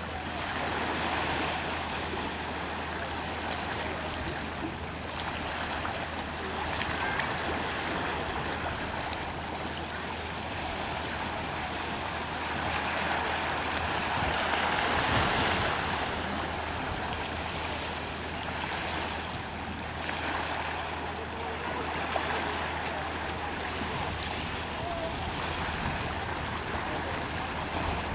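Shallow sea water washing and lapping at the shore, a steady rush of water noise that swells and eases slowly, loudest about halfway through.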